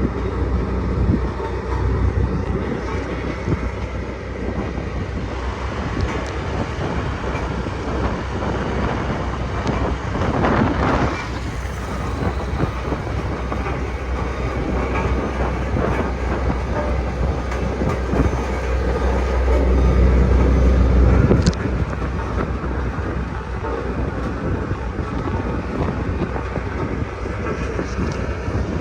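Sakai road roller running: a continuous heavy machine rumble with a clattering rattle. The low rumble swells and then drops off suddenly about 21 seconds in.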